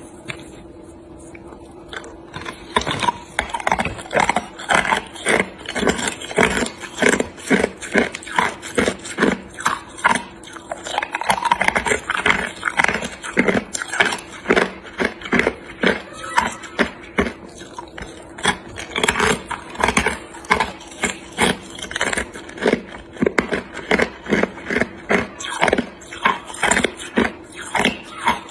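Clear ice cubes bitten and chewed close to the microphone: a long even run of sharp crunches, about two a second, starting a couple of seconds in, over a steady hum.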